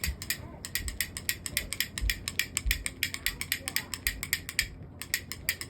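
Rapid, even ratchet-like mechanical clicking, several clicks a second, with a short break about five seconds in and a few dull low thumps.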